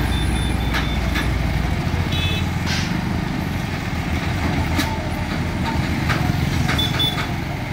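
Vehicle engines running: a steady low diesel drone from the heavy vehicles with motorcycles passing close by, with a few scattered clicks and a couple of short high beeps.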